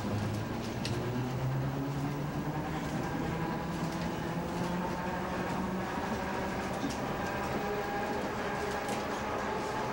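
PTC Nearside streetcar running under power, heard from inside the car: a steady rumble of motors, gears and wheels. A low hum rises slightly in pitch over the first several seconds as the car gathers speed, with a few light clicks along the way.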